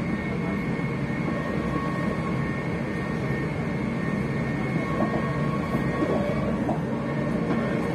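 Electric train traction motors whining inside the passenger carriage: several steady high tones held over the low rumble of the train running on the track.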